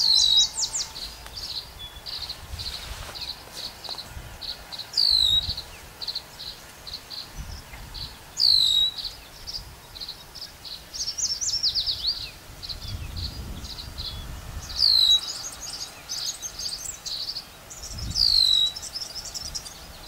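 Tree swallows calling: a steady run of short high chirps, about two a second, broken five times by a louder call that sweeps down in pitch. Low wind rumble underneath.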